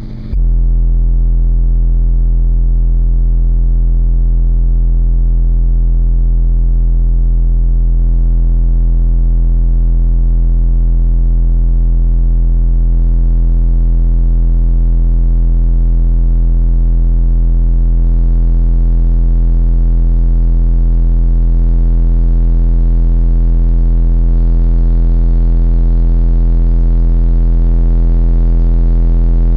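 Steady low bass test tone played loud through a Digital Designs 9510 subwoofer driven by two strapped Sundown SA-Z 2500 amplifiers, with a ladder of overtones above it. It starts just after a brief break at the beginning, and the overtones shift a few times as the volume is turned up.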